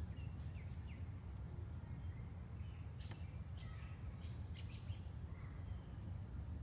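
Faint songbirds chirping: scattered short, high chirps over a steady low outdoor rumble.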